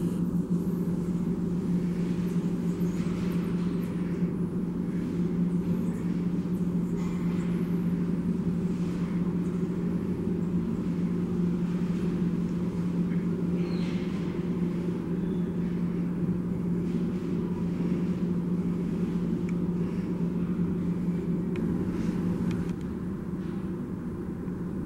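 A steady low machine hum with a few faint scattered ticks over it; it drops slightly in level near the end.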